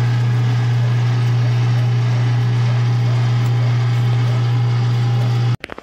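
Cabela's Carnivore #12 3/4 hp electric meat grinder running with a steady hum while it pushes the last of the ground meat out, then switched off abruptly near the end.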